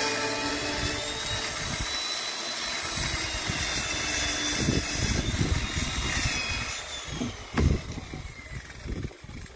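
Chainsaw running, its high engine whine wavering up and down over uneven low rumbling, with one sharp thump about seven and a half seconds in; it fades near the end.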